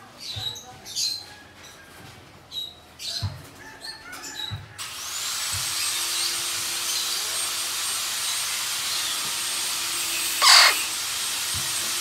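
Female Eclectus parrot giving one loud, harsh, crow-like squawk about ten seconds in, with short chirps and a few soft knocks before it. From about five seconds in, a machine starts up under it: a whine rises and then holds steady over a constant hiss.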